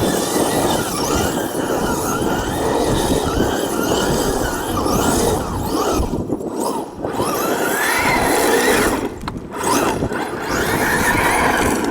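Electric 1/5-scale RC buggy on 12S power being driven hard: its brushless motor whines, rising and falling in pitch again and again over a rushing noise, and drops away briefly twice.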